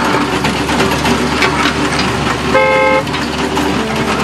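Toy-vehicle sound effect: a steady engine rumble with one short horn honk a little past halfway through.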